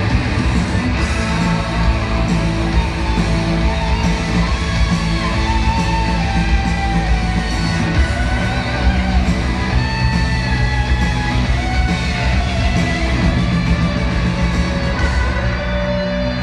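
Live rock band playing with electric guitar, a voice singing over it, heard from the arena crowd, where it sounds loud and reverberant.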